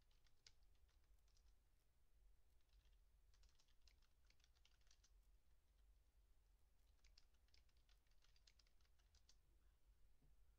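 Faint clicking in three short runs of rapid clicks over a low steady hum.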